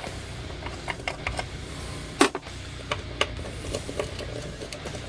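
Small metal hex nuts and washers clicking and tapping as they are unscrewed by hand from the potentiometer shafts of an electric guitar body, with a louder knock a little past two seconds in.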